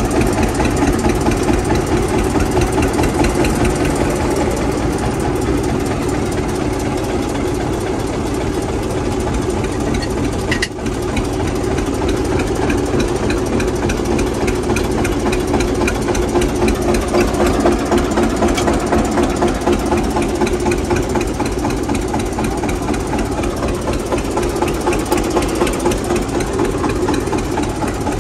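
Diesel tractor engines of a Mahindra 275 DI and an Eicher 242 idling steadily at close range, with an even beat.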